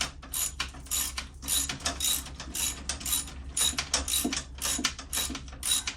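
Hand ratchet wrench being worked, its pawl clicking in quick uneven runs of strokes, over a steady low hum.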